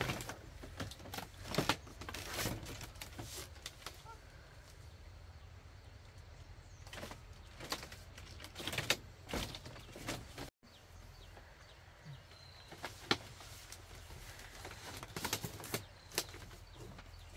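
Scattered knocks and creaks of a woven bamboo cradle hung on ropes being handled, and of people shifting about on a bamboo-slat floor.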